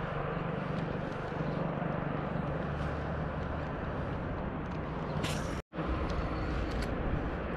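Spinning reel being cranked to wind in a fishing line, its turning giving only faint ticks over a steady low outdoor rumble. The sound cuts out completely for a moment about five and a half seconds in.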